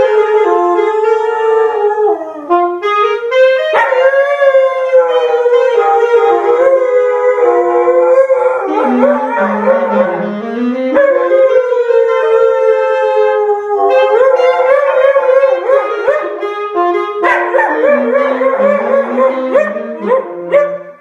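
Alto saxophone playing a melody of held notes while a large black shaggy dog howls along, its wavering howls sliding up and down over the sax. Both stop just before the end.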